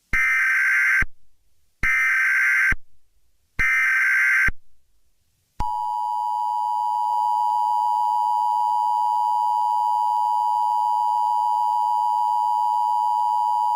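Emergency Alert System SAME header: three short bursts of digital data screech, each about a second long. About five and a half seconds in, the steady two-tone EAS attention signal begins and holds. Together they signal the start of an emergency alert, here a Severe Thunderstorm Watch.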